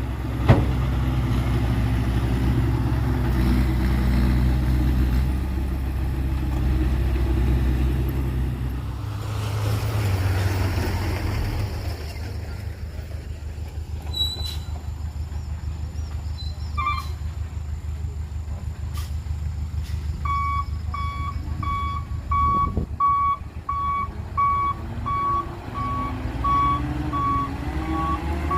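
Heavy diesel truck engine running, then easing off after a short rushing noise about ten seconds in. From about twenty seconds in, a reversing alarm beeps steadily, about two beeps a second, as a dump truck backs up.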